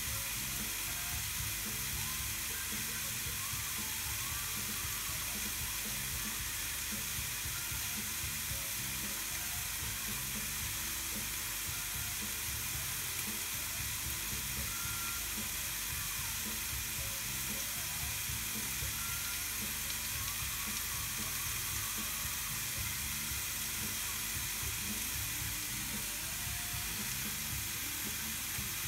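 Ribeye steak sizzling steadily between the hot plates of a closed Tefal Optigrill XL contact grill.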